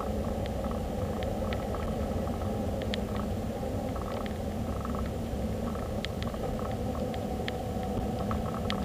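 Steady rumble of a car on the move, road and engine noise heard from inside the cabin, with scattered faint ticks.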